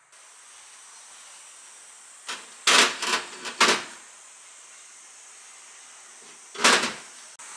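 Kitchen handling noises: a quick cluster of short scraping or rustling sounds about two and a half seconds in, and one more near the end, over a steady low hiss.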